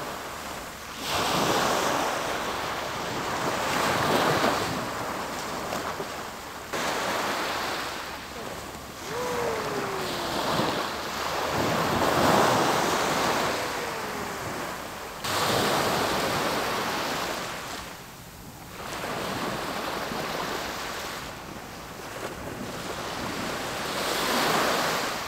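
Sea waves washing onto the shore, the rushing noise swelling and ebbing every few seconds, with wind buffeting the microphone.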